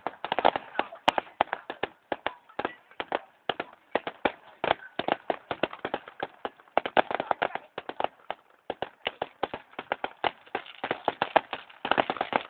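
Fireworks going off: rapid, irregular bangs and crackling pops, several a second, bunching up near the end.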